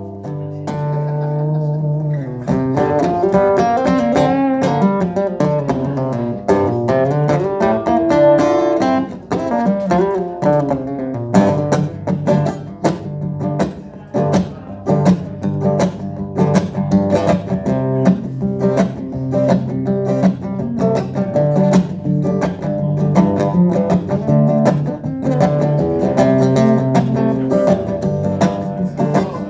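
Acoustic guitar playing a blues intro: a picked, melodic opening, then steady rhythmic strumming from about eleven seconds in.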